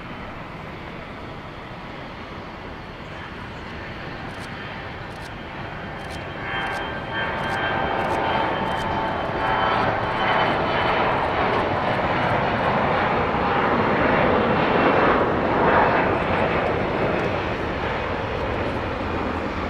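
Bombardier CRJ regional jet's twin rear-mounted turbofans at takeoff power during the takeoff roll and lift-off: a jet roar with a whine that grows louder about six seconds in, peaks near the end, then eases slightly as the aircraft climbs away.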